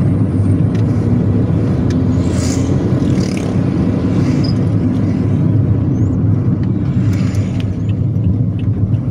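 Steady low vehicle rumble of engine and road noise, heard from inside a car moving in slow traffic.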